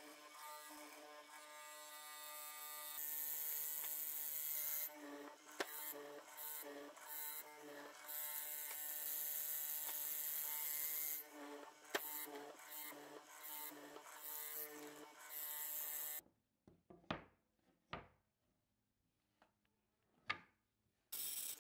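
Benchtop hollow-chisel mortiser running steadily while cutting mortises in wood, its motor sound growing louder and softer as the chisel plunges. About three-quarters of the way through it stops, a few light wooden knocks follow, and the motor starts again near the end.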